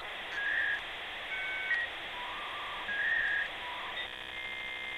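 Electronic logo-intro sound effect: a steady hiss with short whistle-like tones stepping between pitches, turning to a buzzing tone near the end.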